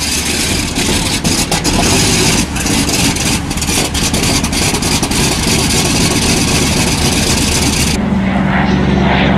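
Douglas DC-3's twin radial piston engines running on the ground, loud and rough with an irregular crackle. About eight seconds in the crackle drops away and a steadier, lower propeller drone from the plane in flight takes over.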